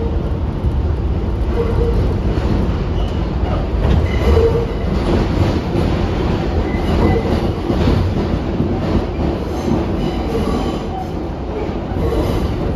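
R62A subway train running on the track: a steady low rumble of wheels on rails, with short wheel squeals breaking in again and again.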